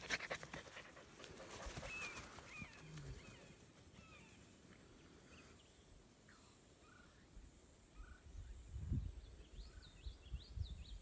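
German Shepherd puppy panting close to the microphone for the first second or two, then faint outdoor quiet with small birds chirping now and then. A low rumbling noise rises near the end.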